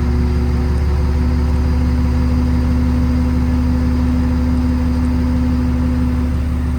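Kenworth T370's Paccar PX-6 diesel idling with its PTO-driven hydraulic pump running while a hydraulic outrigger is moved: a steady engine hum with a steady whine over it that drops away near the end.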